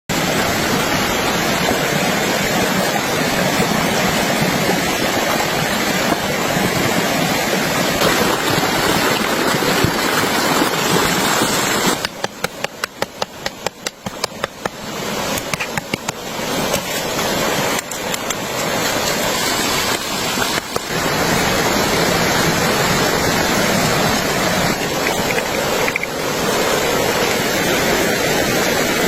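Steady rushing noise of water. It dips quieter about twelve seconds in, with a quick run of sharp ticks for a few seconds, then returns.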